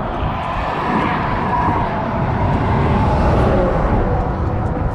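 Road traffic passing on the bridge, a steady rush that swells to its loudest about three seconds in and eases off again.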